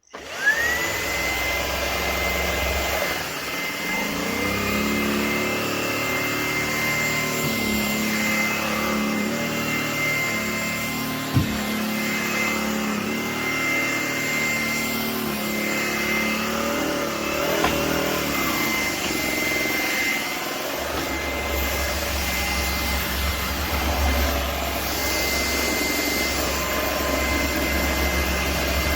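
Shark PowerPro cordless stick vacuum running: its motor whine climbs to a steady high pitch within the first second, then holds level under a hiss of moving air.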